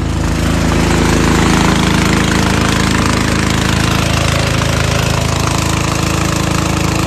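An engine running steadily at close range, with an even, rapid pulse, getting a little louder in the first second.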